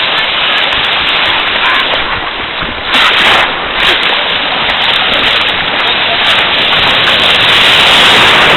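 Ocean surf and splashing in the water, a loud steady rush that swells about three seconds in and again near the end, with faint voices in the background.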